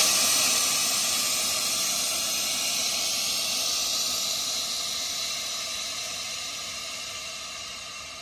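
Air Lift 3P air suspension airing out: a loud, steady hiss of compressed air venting from the bags as the car lowers, slowly fading.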